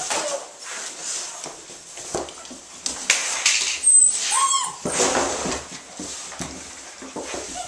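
German Shepherd puppies scuffling and scrambling about, with a single short whine about four seconds in.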